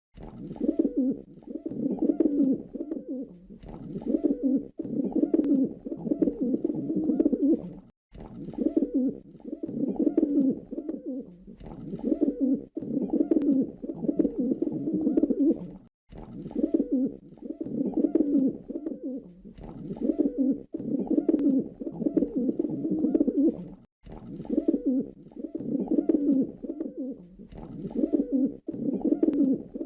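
Pigeon cooing: low, throaty coos in repeated phrases, with a short break about every eight seconds before the same sequence starts again.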